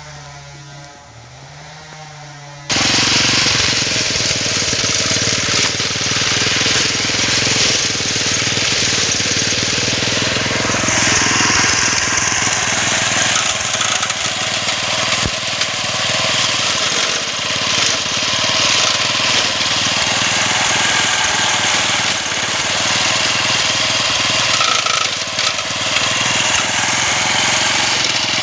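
Small engine of a homemade grass-cutting machine running hard while its blade cuts through thick grass and brush. The sound jumps abruptly louder about three seconds in, then stays loud and dense.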